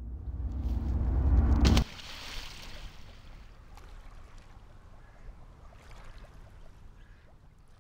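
A low rising rumble with a steady hum builds and cuts off sharply with a splash into water about two seconds in, followed by foam fizzing and bubbling that slowly fades away.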